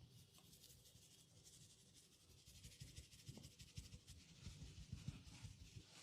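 Faint scratchy rubbing of fingers working over hair and scalp in a head massage, with soft low thumps.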